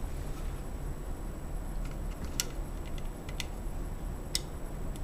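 A few small, sharp clicks, three of them clearest, over a steady low hum, as wire plugs are handled and pushed into the lock's circuit-board sockets.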